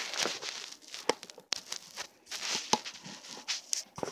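Handling noise: irregular rustling and crinkling with many small sharp clicks and taps.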